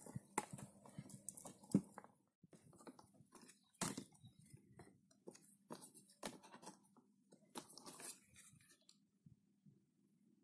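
Dry birch bark crackling and crunching in irregular clicks as pieces are handled, broken to fit and pressed against a pot.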